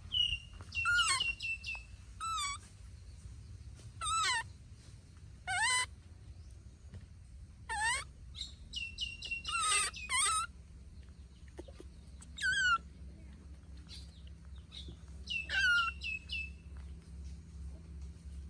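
Baby macaque giving short, high-pitched cries, about ten of them at irregular gaps of one to three seconds. Each cry is a quick squeal that slides in pitch, and a few trail into a thin steady whistle.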